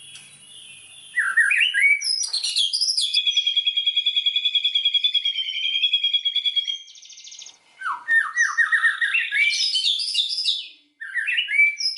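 White-rumped shama (murai batu) singing varied phrases of sharp rising whistles. After about three seconds comes a long, fast, even trill lasting about four seconds, and near the end another run of quick rising notes.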